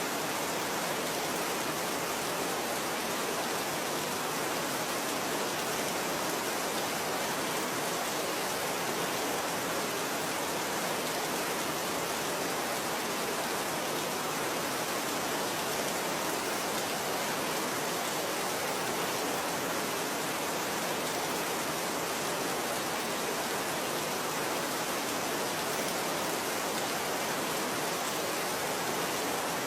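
Steady rain falling, an even, unbroken hiss with no single drops standing out.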